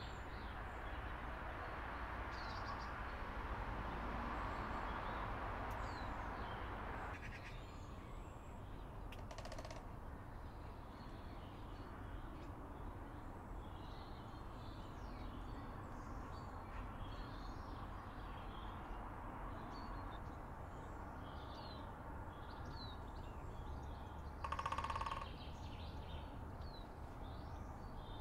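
Outdoor background hiss with small birds chirping on and off throughout, and one louder, harsher bird call near the end.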